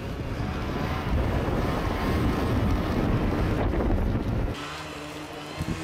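Wind buffeting the microphone and the rush of an inflatable raft towed at speed over snow by a snowmobile. About four and a half seconds in it gives way suddenly to a quieter, steady snowmobile engine hum.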